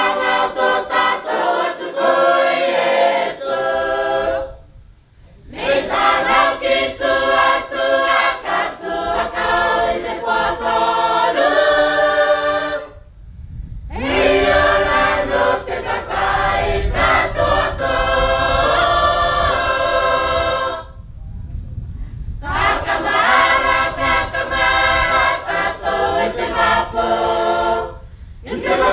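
A choir singing in phrases several seconds long, broken by short pauses for breath.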